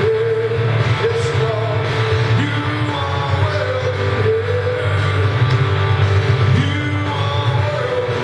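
Live church worship music: singing with long held notes that slide from one pitch to the next, over a band with a steady low bass part.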